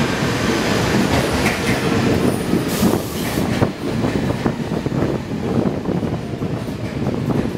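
R46 subway train pulling into the station and running close past as it slows: a loud rumble with wheels clacking over the rail joints, and a brief hiss about three seconds in.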